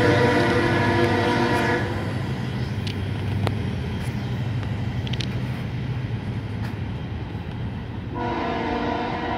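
CSX EMD diesel locomotive's air horn sounding a chord that cuts off about two seconds in and starts again near the end, over the train's steady low rumble.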